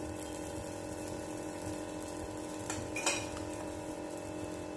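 Faint steady sizzle of a puran poli frying in ghee on a hot tawa, over a steady hum. A metal spoon clinks twice, close together, about three seconds in.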